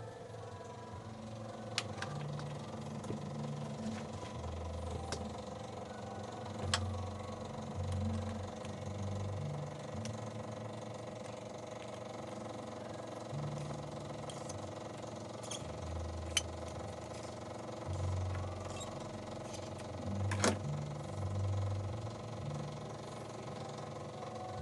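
Suzuki Multicab F6A three-cylinder carbureted engine idling, its low rumble swelling and easing unevenly, with a few sharp clicks over it.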